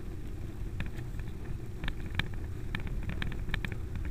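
Steady low rumble of a small electric Greenpower race car rolling slowly over tarmac, with irregular light clicks and rattles, several of them in the second half.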